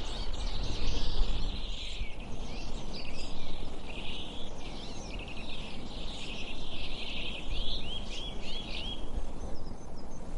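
Forest birdsong: several birds chirping and trilling together over a steady low rumble, with a run of about five quick rising chirps near the end before the singing thins out.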